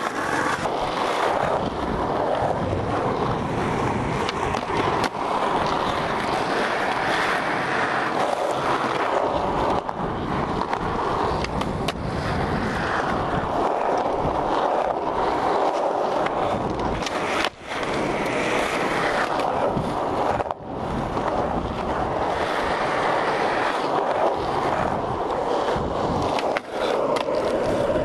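Skateboard wheels rolling on rough asphalt, a continuous rumbling hiss, with occasional sharp clacks from board tricks and landings. The sound drops out briefly three times.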